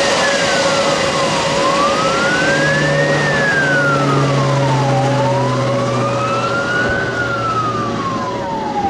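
Air Tractor AT-802's turboprop running loud on a low pass, with a steady whine. Over it a siren wails, sliding slowly down and up, each rise or fall taking about two seconds.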